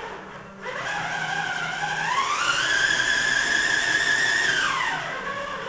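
Homemade electric winch, an old Makita drill motor driving a planetary gearbox and drum, winding in to hoist a model biplane: a motor whine starts about half a second in, rises in pitch about two seconds in, holds steady, then falls in pitch and winds down near the end.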